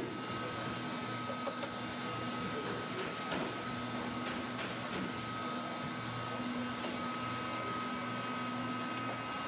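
Hand-held hot-air plastic welder's blower running steadily with a thin high whine, as it heats a roofing-membrane pipe-boot flashing to weld it.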